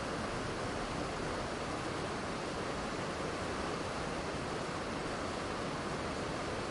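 Waterfall rushing steadily, an even unbroken wash of falling-water noise that neither rises nor falls.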